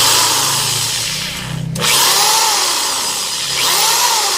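Electric drill motor running with no load as the trigger is squeezed. It runs, cuts off abruptly just under two seconds in, then starts again almost at once.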